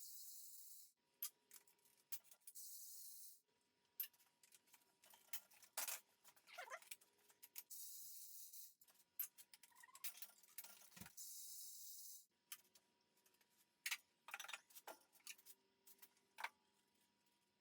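Scattered metallic clicks, clinks and knocks of hand tools working on parts of a bare engine, with four short hissing bursts of about a second each.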